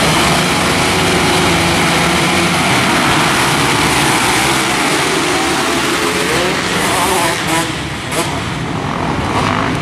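A pack of motocross bikes revving hard and accelerating off the start line together in a race start. The engine noise eases a little about seven seconds in, with individual bikes heard rising and falling in pitch as they shift.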